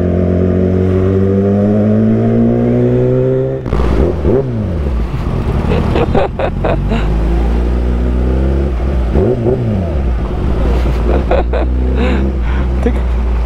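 Motorcycle engine heard from the rider's own microphone while riding. The revs climb steadily for about three and a half seconds, drop sharply at an upshift, then settle into a steady low drone. Two short falling sweeps come later, about four and nine seconds in.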